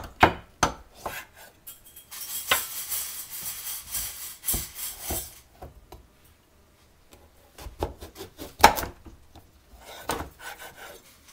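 Chef's knife cutting through a raw acorn squash on a wooden cutting board: a few seconds of scraping as the blade works through the hard rind, between sharp knocks of the blade and squash on the board, the loudest knock about three quarters of the way in.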